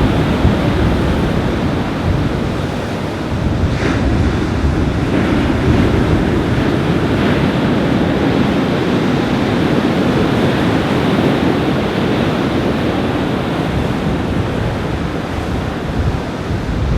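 Surf breaking on a beach in strong wind, with wind buffeting the microphone: a loud, steady rush of noise heaviest in the low rumble, with a few brief hissy swells.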